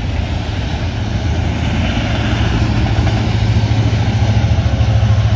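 Rear distributed-power locomotive, an EMD SD70AH diesel, approaching at the end of a freight train: a low, steady engine drone that grows louder, over the rumble of autorack cars rolling past.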